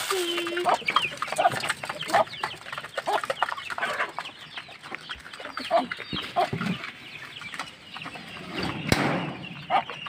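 A small flock of hens and young chicks at a metal grain feeder: scattered clucks and short high chick peeps, with many small clicks of beaks pecking at the feed pan and one sharp click near the end.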